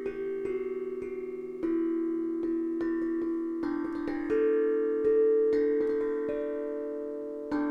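Harmonic Star 11-note steel tongue drum, tuned to a D major scale, played with felt mallets: a run of struck notes from both hands that ring on and overlap into a gentle melody.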